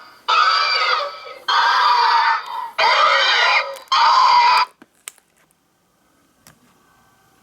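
Recorded xenomorph screeches from the life-size Big Chap figure's button-activated sound module, four harsh calls in quick succession, then only a few faint clicks.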